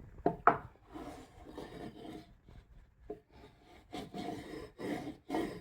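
Bamboo cutting board being rubbed down by hand in irregular scraping strokes, working a piece flush with the surface.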